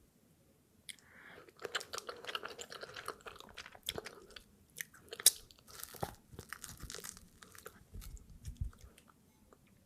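Close-up eating sounds of fufu being eaten: chewing and biting with many sharp mouth clicks, busiest in the first two thirds, then a few low thumps near the end.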